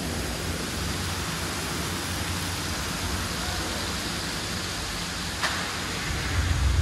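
Steady rush of water in an indoor boat-ride channel, with a low rumble underneath and one short sharp tap about five and a half seconds in.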